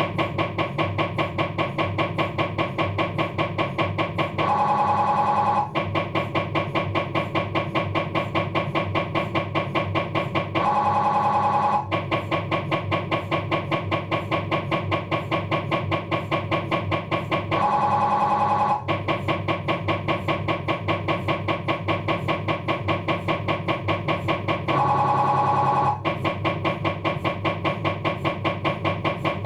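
Philips 1.5 T MRI scanner's gradient coils running an axial diffusion-weighted sequence: a fast, even, loud beat of buzzing pulses. About every seven seconds it gives way to a steadier humming tone lasting a little over a second.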